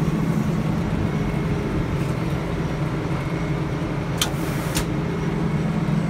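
Sawmill's old Detroit Diesel engine running steadily, driving the circular saw through a red oak log. About four seconds in there is a brief sharp noise lasting about half a second.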